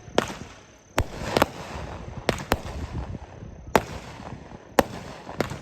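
Consumer aerial firework shells bursting: about nine sharp bangs at uneven intervals, a few in quick pairs, with crackling between them.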